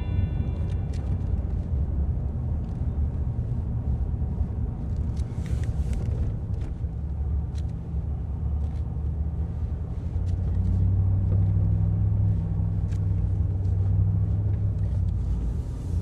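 Steady low rumble of a car on the move, heard from inside the cabin, with a few faint ticks and knocks.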